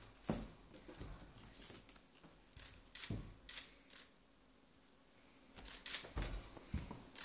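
Faint, scattered taps, knocks and rustles at irregular times, with a short lull midway and a cluster of louder knocks about six seconds in.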